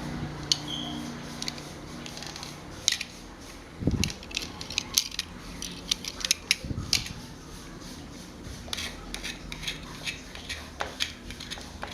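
Metal fan parts and tools clinking and tapping against each other during work on an old electric table fan: a string of sharp clicks, denser in the second half, with a couple of duller knocks.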